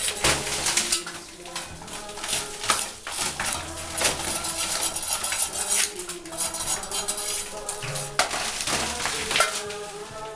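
A metal hand tool scraping and knocking on tile and plaster in quick, irregular strokes, opening up a leaking bathroom floor for inspection.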